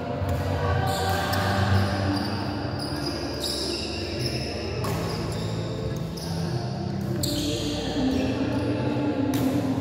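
Badminton rally: racket strings hitting the shuttlecock with sharp smacks, about one every one and a half to two seconds, over a steady background of the hall.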